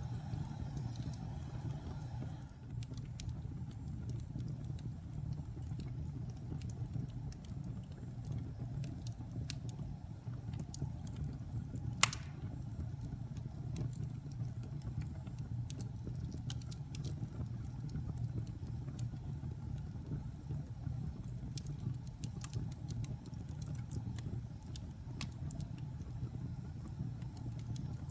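Wood fire crackling: a steady low rumble of burning with scattered sharp crackles and small pops, one louder pop about twelve seconds in.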